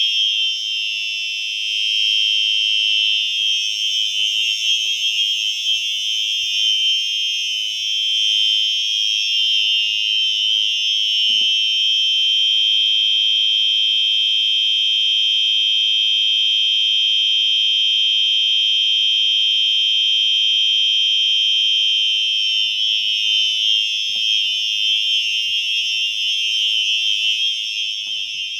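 Two Simplex 4903-9236 fire alarm horns sounding together, a loud, steady, continuous high-pitched blare with no on-off pattern. One horn is lower-pitched than the other, and the two pitches give the sound a wavering edge.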